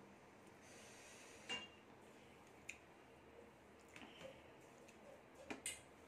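Near silence with faint eating sounds: a few soft clicks and smacks from chewing and from fingers mixing rice on a plate.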